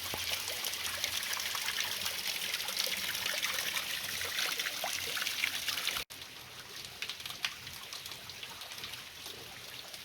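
Water trickling and splashing over rocks at a small waterfall, with many small drips and splashes. About six seconds in it cuts off suddenly to a quieter stretch of the same trickling.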